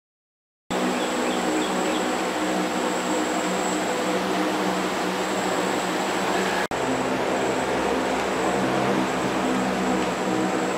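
A steady mechanical hum with a thin high whine over it, starting abruptly about a second in and briefly cutting out just past the middle before carrying on unchanged.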